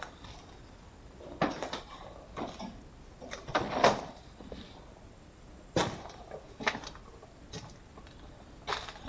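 Footsteps crunching and scuffing over rubble, broken tiles and scattered paper: irregular steps about a second apart, with the loudest scuffle a little under four seconds in.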